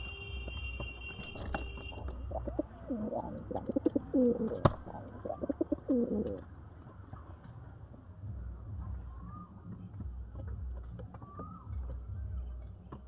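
Domestic pigeon cooing: a run of throaty, pulsing coos from about two and a half to six seconds in, with one sharp click in the middle of it. A few faint short chirps follow later.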